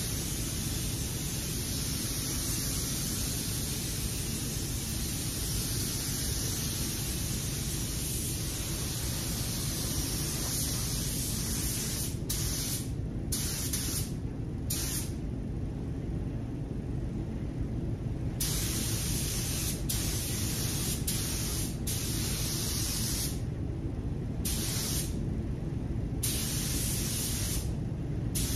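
Tuba TH101AG gravity-feed spray gun hissing steadily with compressed air as it sprays clear coat onto a car bumper. In the second half the hiss cuts out several times for a second or more, as the trigger is released between passes, leaving a lower steady rush underneath.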